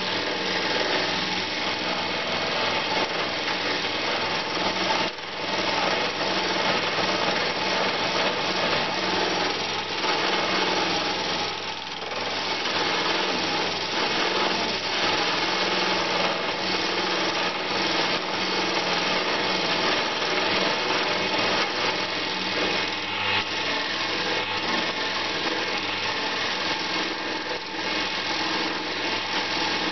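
Wood lathe motor running with a steady hum while a hand-held rounded turning tool scrapes a spinning banksia seed pod, giving a continuous rasping with a light touch. The rasping eases briefly twice, about five and twelve seconds in.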